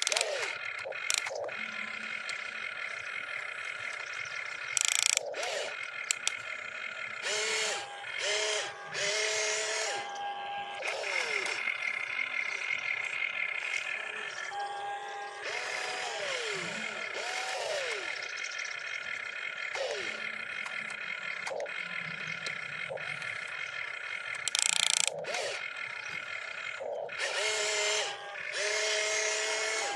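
Small electric motors of a toy RC excavator whining in short spells as the boom, arm and upper body move, the pitch gliding up as each motor starts and down as it stops. A few short loud noisy bursts stand out, about five seconds in and again near twenty-five seconds.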